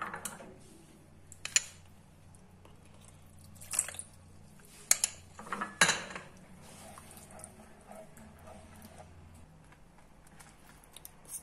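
A spatula knocking and scraping against a non-stick frying pan while stirring a thick white sauce: a handful of irregular clacks, the sharpest about five to six seconds in.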